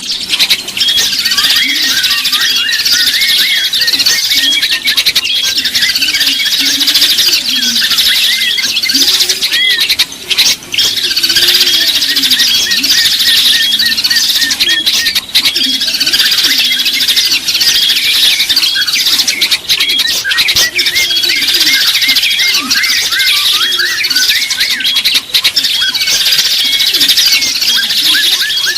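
Dense chorus of many small songbirds chirping and twittering at once, without a break, as in a bird-lure (pikat) recording. A lower, wavering tone runs steadily beneath the chirps.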